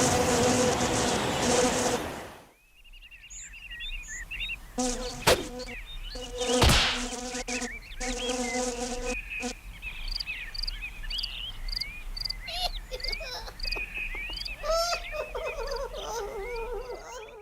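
A flying insect buzzing close by, cut off suddenly about two seconds in. After that, many short high chirps come and go, and the buzz returns in stretches, with a couple of sharp clicks.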